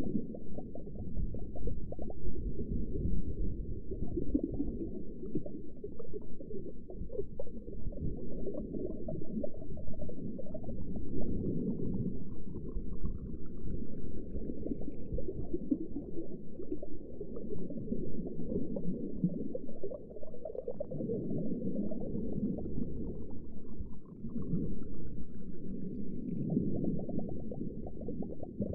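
Underwater ambience: muffled, low bubbling and rumbling of water. Twice a faint rising tone glides upward, once in the middle and once near the end.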